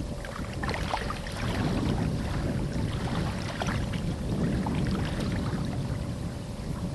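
River water lapping and splashing at the bank, with wind noise on the microphone and a faint steady hum underneath.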